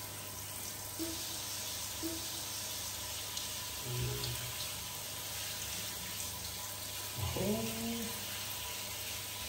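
Handheld shower head spraying a steady stream of water over a baby monkey and onto a tiled floor, with a brief vocal sound about seven seconds in.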